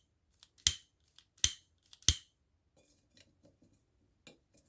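A lighter clicked three times in quick succession, sharp clicks about two-thirds of a second apart, as it is struck to light a kerosene lamp's wick, then a few faint ticks.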